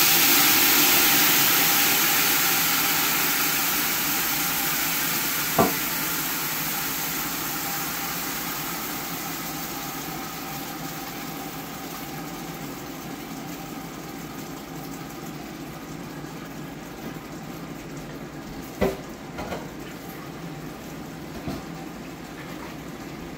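Blended chili sauce frying as it is poured through a metal strainer into a hot steel stockpot: a loud sizzle and hiss that dies down over about the first ten seconds to a steady, lower frying sound. A few light knocks near the end.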